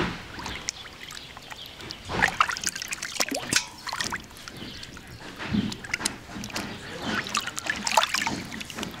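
Water splashing and trickling as hands swish and rub pieces of fish in a large metal basin of water, washing them, with irregular splashes throughout.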